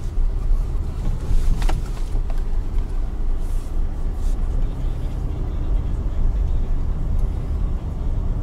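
Car driving slowly, heard from inside the cabin: a steady low rumble of engine and tyres.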